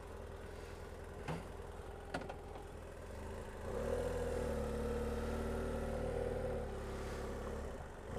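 Motorcycle engine ticking over, then pulling away slowly: a slight rise in engine note about four seconds in, held steady for about three seconds before easing off. Two faint clicks in the first couple of seconds.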